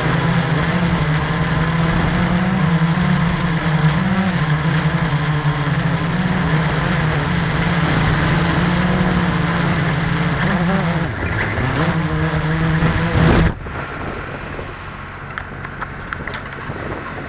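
Walkera QR X350 quadcopter's brushless motors and propellers buzzing close to its own camera in a low hover, the pitch wavering as it holds position; about eleven seconds in the pitch sags and recovers. Near the end the buzz cuts off suddenly as the quad ends up on its side on the ground, leaving only faint rustling and a few clicks.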